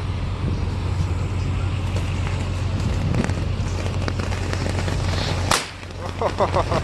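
Tank ground fireworks burning with a steady hiss under gusty wind rumbling on the microphone, with a few small pops and one sharp bang about five and a half seconds in.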